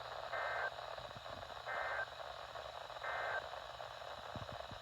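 Three short, identical bursts of EAS/SAME digital data tone, about a second and a half apart, over steady weather-radio hiss: the End of Message code that closes an emergency alert broadcast.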